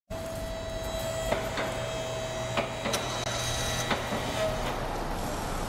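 Tools clinking against metal under a pickup truck: about five sharp metallic knocks over a steady whine, which stops about two and a half seconds in.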